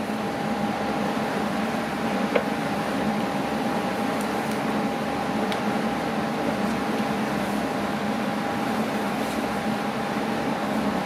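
Steady mechanical whir of a running fan-type machine, with a constant high whine over it and a couple of faint ticks.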